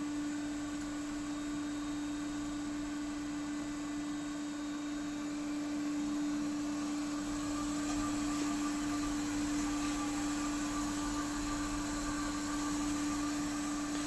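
Kasto KASTOTEC AC 3 automatic band saw for metal running: a steady machine hum with one strong, unchanging low tone.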